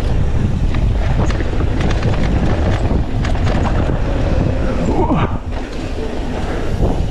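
Mountain bike descending a dirt trail at speed: heavy wind buffeting the microphone, with frequent clicks and knocks from the bike rattling over the rough ground.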